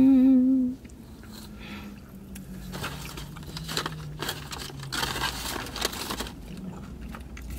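Crunching bites and chewing of a Hot Cheeto-crusted mozzarella corn dog, densest and loudest between about three and six seconds in. It opens with a brief, loud hummed 'mmm' with a wavering pitch.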